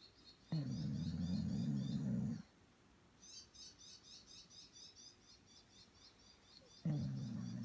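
Snoring: two long, low, rasping snores of about two seconds each, one starting about half a second in and another near the end. Faint, fast, high chirping is heard in the background between them.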